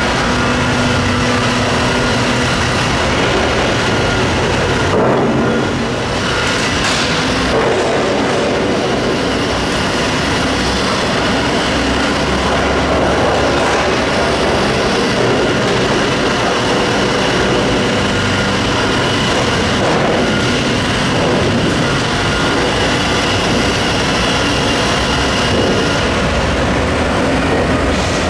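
Liebherr R9200 mining excavator travelling on its crawler tracks: its diesel engine runs steadily under a continuous clatter of the steel track shoes on the concrete floor.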